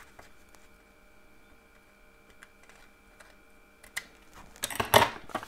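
Faint small clicks of paper being handled, then a short, loud rustle and crinkle near the end as a folded sheet of translucent vellum-type paper is picked up and moved.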